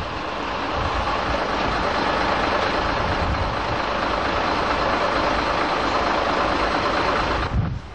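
Scania fire engine's diesel engine running steadily, a loud, even noise that cuts off suddenly near the end.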